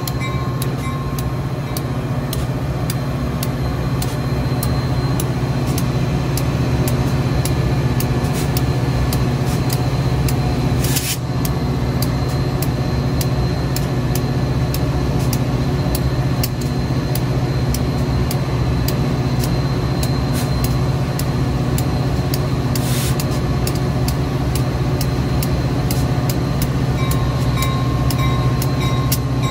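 A Metra EMD F40PH diesel locomotive standing at the platform with its engine running. It makes a loud, steady low drone with a few faint steady tones above it.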